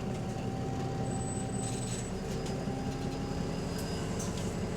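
Bus DW254's diesel engine and drivetrain running steadily on the move, heard from inside the bus, with a held whine over the low rumble and a short high whistle about a second in. The uploader blames a bad turbo and limp mode for how this bus runs.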